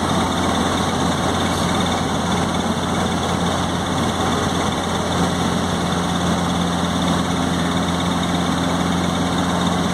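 Robinson helicopter in cruising flight: the engine and main rotor make a steady low drone, unchanging in pitch and level, over a wide rushing noise.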